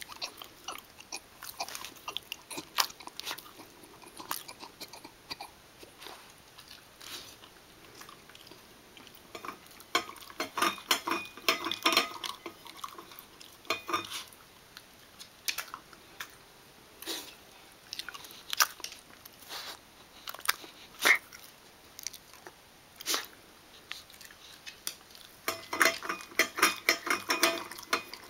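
A basenji eating from a stainless steel bowl: irregular chewing, licking and smacking, with sharp clicks and clinks of the metal bowl. The busiest stretches come about ten to fourteen seconds in and again near the end, where the bowl briefly rings.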